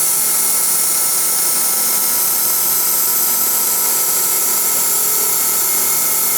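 Milling machine running steadily while cutting a disc: an unbroken high hiss with a few steady whining tones.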